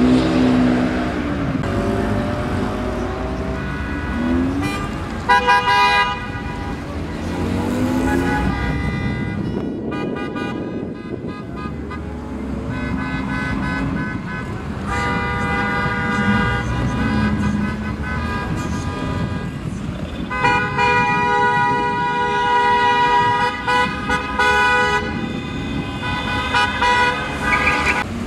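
Car horns honking in long, overlapping blasts, repeated many times, over Opel Calibra engines revving and pulling away.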